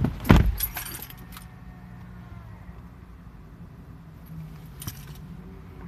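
Keys jangling and a heavy thump in the first second, then the 2015 Lincoln MKC running with a steady low hum inside the cabin, with a few faint clicks about five seconds in.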